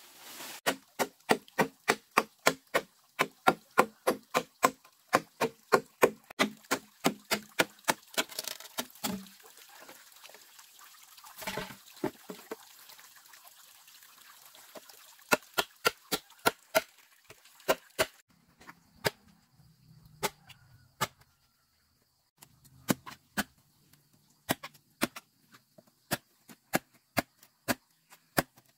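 Machete chopping green bamboo: quick, regular blows, about two to three a second, for the first nine seconds. After a pause come spaced strikes in short runs.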